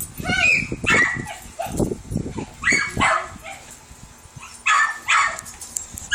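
A dog whining and yipping in a series of short cries, several in a row with brief gaps.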